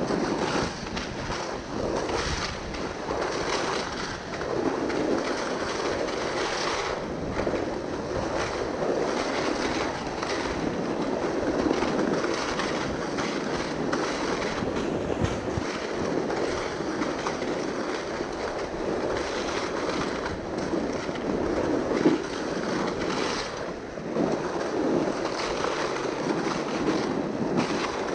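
A towed sled sliding over a frozen, snow-covered field, its base scraping and hissing continuously as it rides over the lumpy ground, with wind on the microphone. One sharper bump comes about three-quarters of the way through.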